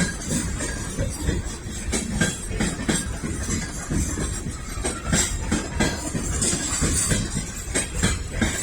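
Norfolk Southern freight train rolling slowly out of the yard: a steady low rumble of the cars, with irregular clicks and knocks from the wheels over the rail joints.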